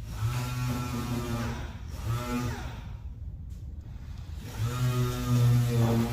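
A motor running with a steady hum, in three stretches: about a second and a half, a brief one near the middle, and a longer one near the end.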